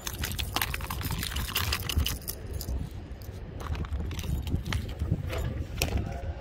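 Metal lures and treble hooks clinking against one another and against a clear plastic tackle box as a solid vibration lure is picked out, in a run of sharp little clicks and rattles. A steady low rumble of wind on the microphone runs underneath.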